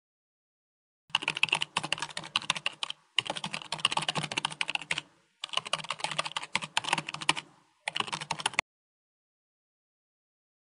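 Rapid computer-keyboard typing clatter, in four runs with short breaks, stopping about two-thirds of the way in.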